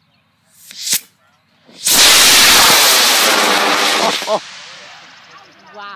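Aerotech I211 White Lightning model rocket motor lighting about two seconds in with a sudden, very loud rushing burn that lasts about two seconds and then fades away as the rocket climbs. A brief sharp crack comes about a second in, before ignition.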